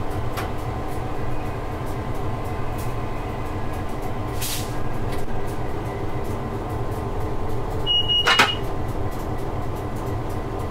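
Diesel freight locomotive running along the line, heard from inside the cab: a steady engine drone with many short light clicks. A brief hiss comes about four and a half seconds in, and a sharp, louder sound with a short high tone about eight seconds in.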